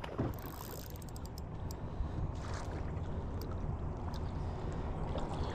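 A small mulloway (jewfish) splashing at the water's surface beside the boat as it is netted, a scatter of short splashes over a steady low rumble.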